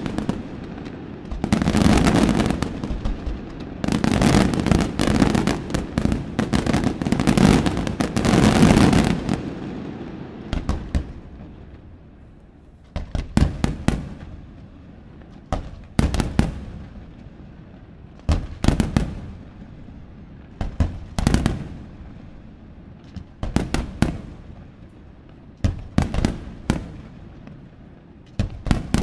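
Aerial firework shells bursting: a dense, continuous barrage of bangs for about the first ten seconds, then spaced clusters of sharp reports about every two to three seconds.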